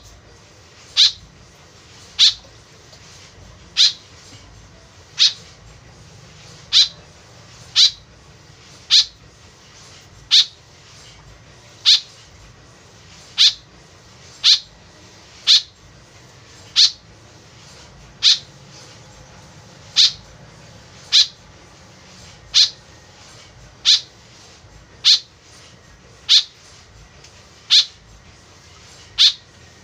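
White-breasted woodswallow calls played as a lure recording: a short, sharp, high call repeated at a steady pace, roughly once every second to second and a half.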